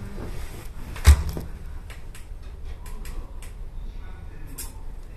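A sharp thump about a second in, then a run of light clicks and knocks over a low steady hum, inside the cab of a stationary electric train.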